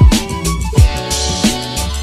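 Intro music with a steady beat: held melodic notes over a deep kick drum that drops in pitch, hitting about every three-quarters of a second.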